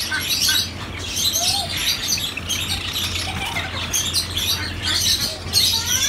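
A cage of Java sparrows chirping: many short, high chirps overlapping throughout, over a steady low hum.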